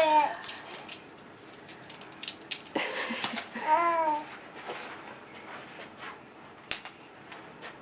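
Coins clinking and tapping as a toddler handles them and drops them into a piggy bank: a series of small sharp clicks, with a ringing metallic clink near the end. A child's short vocal sound rises and falls about four seconds in.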